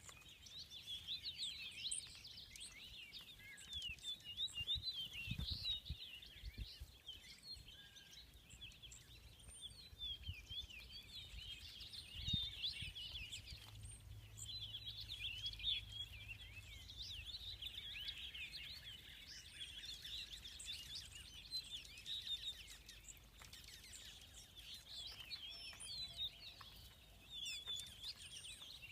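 A large mixed flock of songbirds singing and chirping continuously in a dense, overlapping spring chorus. A few dull low thumps come through about five and twelve seconds in.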